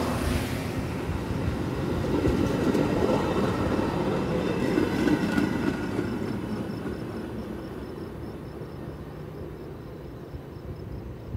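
Metra bilevel commuter train rolling past on the rails, a steady wheel-and-rail rumble that swells a couple of seconds in, then fades as the last car, the cab car, goes by and draws away.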